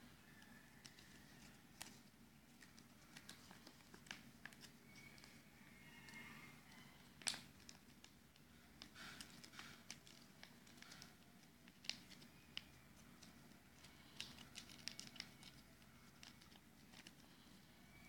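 Faint crinkling and creasing of a sheet of origami paper being folded by hand: scattered soft rustles and small clicks, with the sharpest snaps about seven seconds in and again about twelve seconds in.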